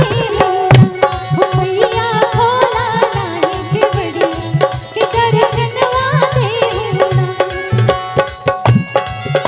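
Live Chhath folk-song music: a wavering melodic line with vibrato over quick, steady tabla-style hand-drumming.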